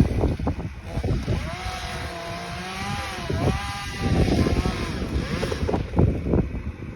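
Chainsaw running up in a pine tree, its engine note wavering up and down as it cuts, with wind buffeting the microphone.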